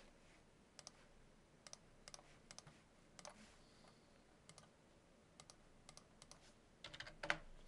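Faint, scattered clicks of a computer mouse, many in quick pairs, with a denser run of clicks near the end.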